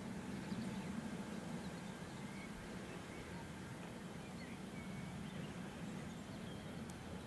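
Distant steam locomotive working a train, heard as a faint steady low rumble, with a few small birds chirping.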